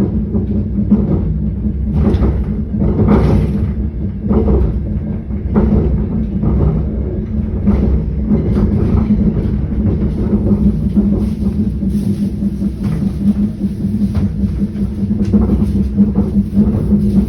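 Moving train: a steady low rumble with a hum, broken by irregular knocks as the wheels clack over the rail joints.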